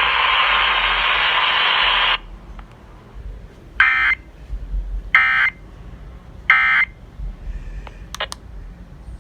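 Radio static hiss that cuts off suddenly about two seconds in. Then three short buzzy digital data bursts about 1.3 seconds apart: the EAS end-of-message code, marking the end of the flood warning broadcast.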